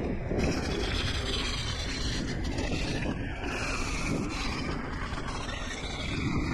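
Wind rushing over an action camera's microphone, with the steady rumble of an electric mountain bike's tyres rolling over a dirt trail.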